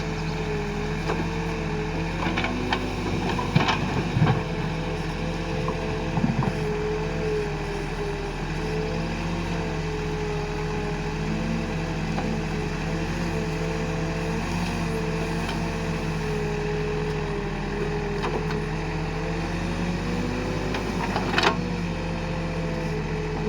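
Escorts Digmax backhoe loader's diesel engine running steadily while digging and loading mud, its pitch rising and falling a little with the load. A few sharp metal clanks come from the working machine several seconds in and again near the end.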